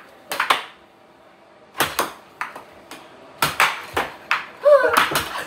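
Air hockey being played: plastic mallets striking the puck and the puck clacking off the table's rails, an irregular run of sharp clacks with a pause of about a second near the start.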